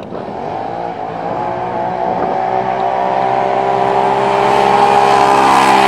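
ATV engines running at high revs down a dirt drag strip, the sound growing steadily louder as the quads come on.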